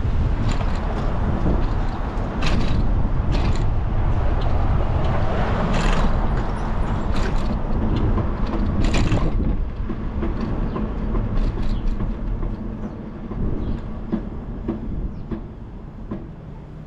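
Riding noise from a moving bicycle: low wind rumble on the microphone and tyre noise on the pavement, with several sharp knocks and rattles over bumps in the first nine seconds. The noise eases off at about ten seconds.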